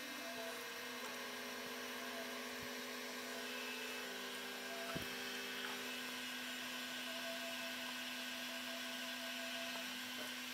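Electric pottery wheel motor running with a steady hum and whine, its pitch shifting slightly now and then as the speed changes, while the wheel spins a 4.5 kg lump of porcelain being thrown. A single short click about halfway through.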